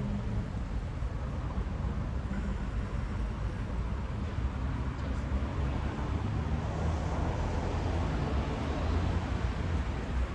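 Steady low rumble of outdoor background noise, with no clear single event.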